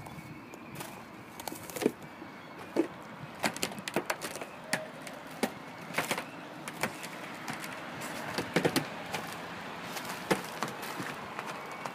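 Kinetic sculpture's turning mechanism of metal rings, gears and balls inside a clear sphere, giving irregular clicks and knocks, some with a short ring, over a steady background noise.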